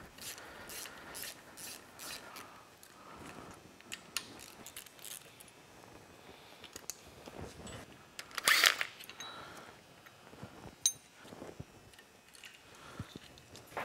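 Small metal engine parts clinking and clicking as they are handled by hand, with a brief louder rattle about two-thirds of the way through and a sharp click soon after.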